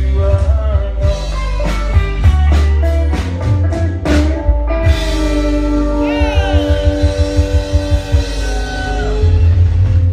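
Live band playing loudly: electric guitar, bass guitar and drum kit. About six seconds in, the guitar bends and slides through notes over quick drum hits.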